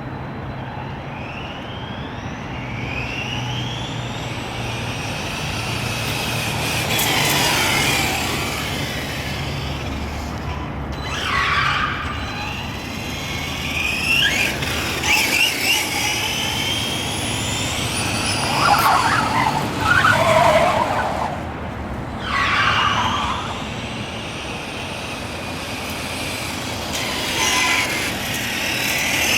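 Electric RC short course truck's motor whining up and down in pitch as it speeds up and slows, over and over, over a steady hiss. The loudest passes come about two-thirds of the way through.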